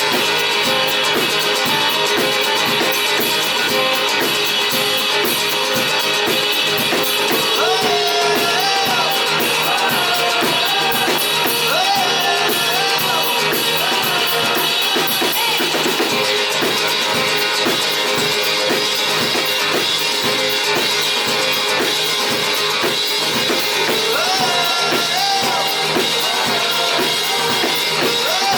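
Rock band playing live at full volume: drum kit with kick and snare keeping a steady beat under bass and guitars, in a long stretch of the song without words.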